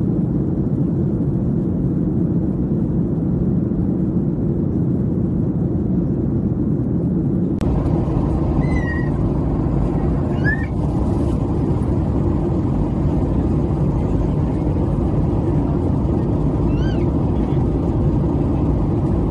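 Steady low rumble of engine and airflow noise inside the cabin of a Ryanair Boeing 737-800 in flight, from its CFM56-7B turbofans. About a third of the way in, the noise changes abruptly and gains more hiss. A few brief high chirps sound over it afterwards.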